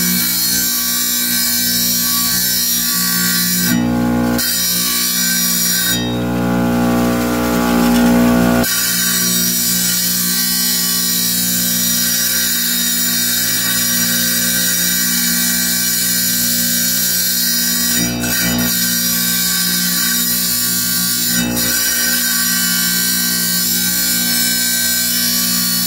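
Wet tile saw running steadily, its motor humming and the blade spinning, as it is used to cut stone. About six seconds in, the sound turns louder and rougher for a couple of seconds.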